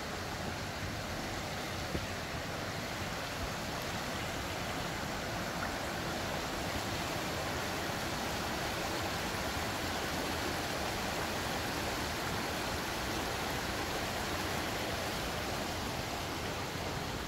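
Shallow river running over rocks and small rapids: a steady rushing of water.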